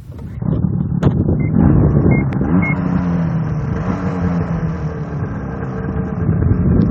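Snowmobile engine running close by, starting abruptly and loud, its pitch sliding up and down as the throttle is worked.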